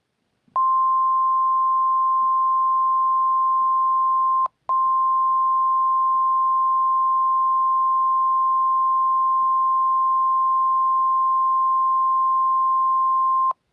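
NOAA Weather Radio warning alarm tone: a single steady high tone near 1050 Hz. It starts about half a second in, drops out for a moment about four seconds in, then holds for about nine more seconds before cutting off.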